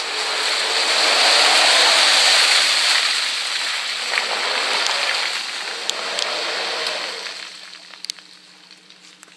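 Land Rover Discovery ploughing through deep mud and water, its tyres churning and throwing a loud rush of muddy spray that dies away about seven seconds in as it climbs out.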